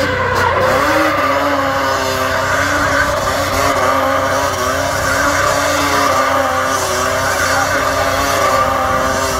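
Quad bike engine held at high revs, its pitch wavering up and down about every half second as the rider works the throttle through a stunt.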